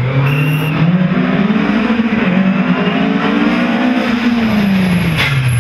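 Ford Escort's Cosworth BDA four-cylinder rally engine at full effort, revs climbing with a quick gear change about two seconds in, climbing again, then falling off as it comes off the throttle. There is a sharp crack near the end.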